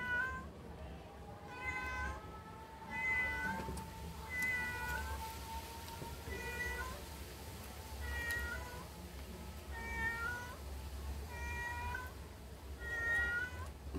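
A cat meowing over and over: about nine short meows, roughly one every one and a half seconds.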